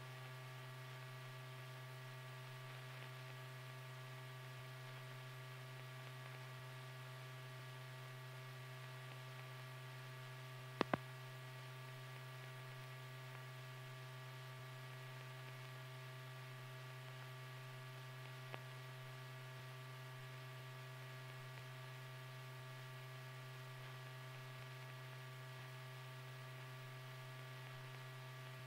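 Steady low electrical hum with fainter higher hum tones over a faint hiss, with no dialogue or music. A brief double click comes about eleven seconds in, and a faint tick a few seconds later.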